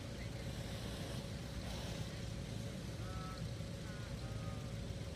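Outdoor ambience: a steady low rumble with a faint steady hum, and a few short high chirps about three to four seconds in.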